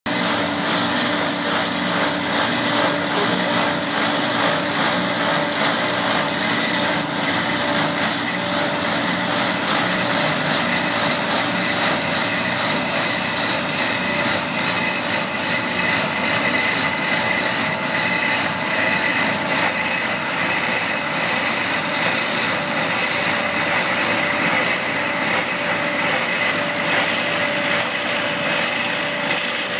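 FEND WSF 800 root-barrier trencher at work, its side-mounted cutter milling a narrow slot in the soil as the machine creeps forward: a steady, loud mechanical din with constant whining tones over it.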